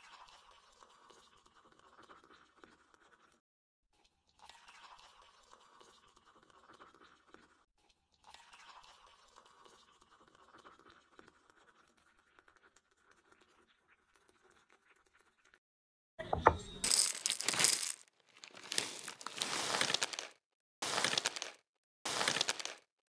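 Very faint sounds with a few light ticks of a metal spoon against a glass dish while chocolate is stirred. About 16 seconds in, a foil-lined cereal bag crinkles loudly in several bursts as crunchy chocolate cereal is poured into a glass bowl.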